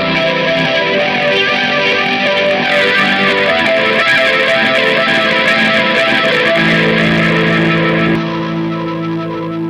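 Electric guitar played through the Steinberg VST Amp Rack amp simulator in Cubase. About 8 s in, the bright top end falls away and a held chord rings on.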